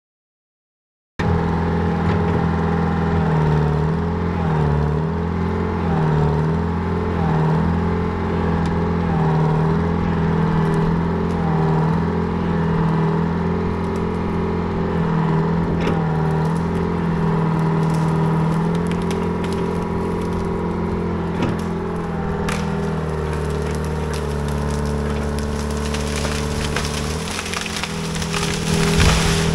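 Old P&H excavator's Detroit Diesel engine running hard under hydraulic load, its pitch dipping and recovering again and again as the boom pushes against a tree. Near the end, wood cracks and roots tear as the tree's root ball rips out of the ground. It starts about a second in, after a short silence.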